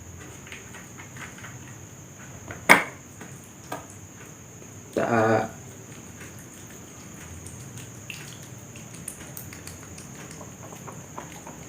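Faint scraping and clicking of utensils and dishes while noodles are mixed, with one sharp clink about three seconds in and a smaller one a second later. A brief vocal sound comes about five seconds in.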